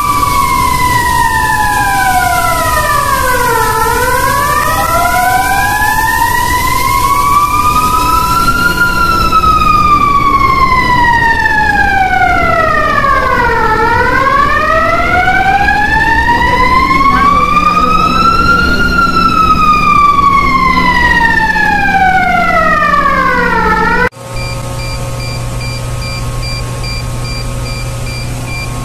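Water mist (Hypermist) system's fire-alarm siren wailing, sliding slowly down and up about once every ten seconds, with a steady tone beneath it at first. About 24 seconds in it cuts off, and a pulsing electronic alarm beep with a steady hum follows.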